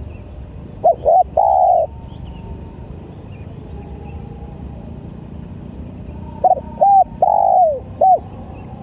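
Spotted dove cooing in two phrases. The first, about a second in, is two short notes and a longer one. The second, near the end, is two short notes, a long falling note and a final short one.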